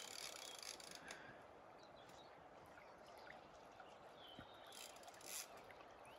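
Near silence: a faint, even rush of river water, with a brief faint swell of noise about five seconds in.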